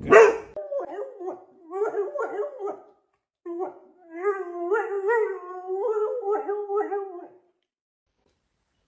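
A dog howling in a run of wavering, drawn-out cries, with a short break about three seconds in; it stops about seven and a half seconds in.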